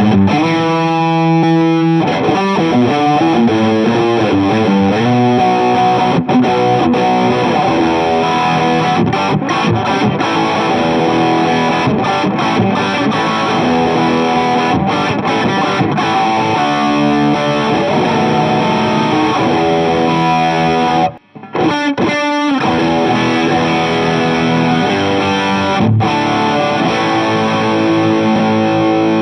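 Electric guitar played through a King Of Tone–style dual overdrive pedal into a Fuchs ODS amp simulation: overdriven noodling, single-note lines and chords. A held chord rings near the start, and the playing stops briefly about three quarters of the way through before picking up again.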